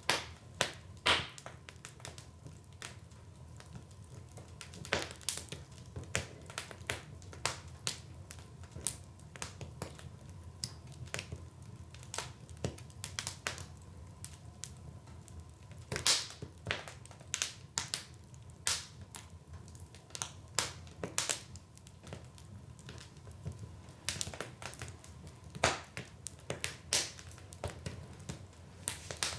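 Wood fire crackling in a fireplace: irregular sharp pops and snaps, several a second, over a low steady rumble of the burning.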